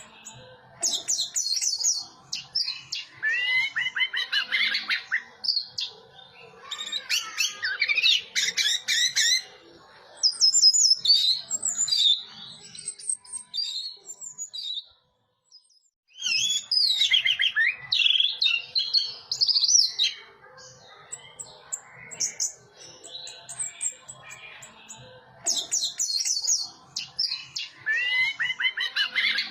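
Orange-headed thrush (anis merah) singing: phrases of rapid, varied whistles and chirps a few seconds long, separated by short pauses, with a brief silent gap about halfway through.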